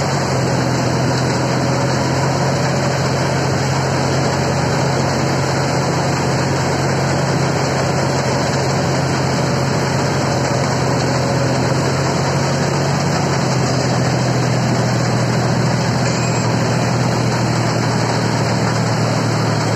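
Mini combine harvester running steadily while cutting paddy: a continuous engine drone with the harvesting machinery working, loud and even throughout.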